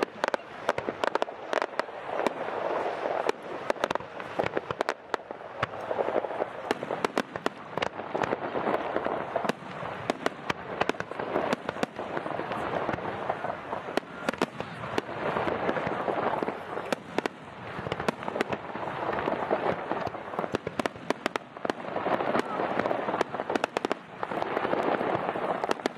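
Fireworks display: a dense, continuous run of sharp cracks and bangs from bursting shells, over a crackling rush that swells and fades every few seconds.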